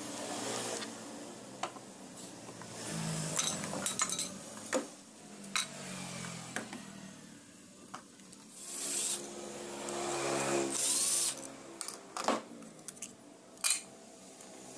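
Clicks, knocks and scrapes of an old Makita electric hand planer's metal body and loose parts being handled and set down on a wooden workbench while it is taken apart. A motor hum in the background swells and fades a few times.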